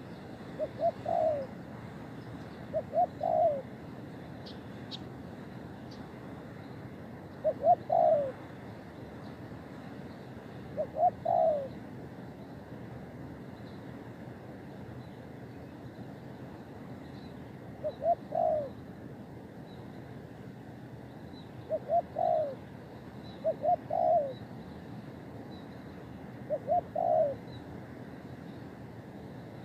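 Spotted dove cooing: short phrases of two or three coos, each note bending up and then down, repeated about every three seconds with some longer gaps, over a steady background hiss.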